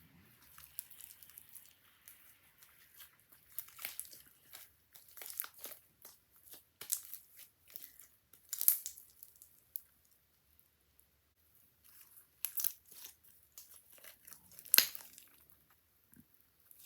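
Hands kneading and stretching white slime made from Elmer's Gue and shaving foam, giving irregular sticky crackles and small pops. There is a short pause about ten seconds in.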